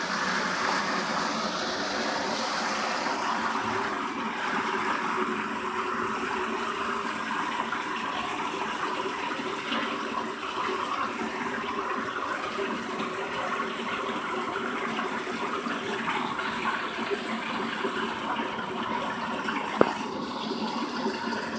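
Floodwater rushing steadily into a roadside storm drain that has been clogged with debris, a continuous gushing flow. A single sharp knock sounds near the end.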